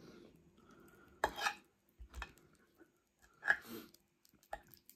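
A metal fork knocking and scraping on a ceramic plate: three or four short, quiet clinks about a second apart.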